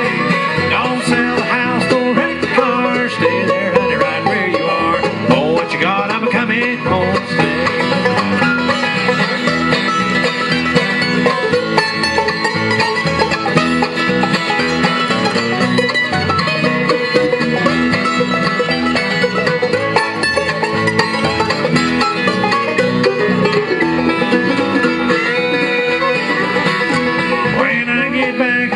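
Live bluegrass band playing an instrumental break on banjo, fiddle, mandolin and acoustic guitar, with no singing.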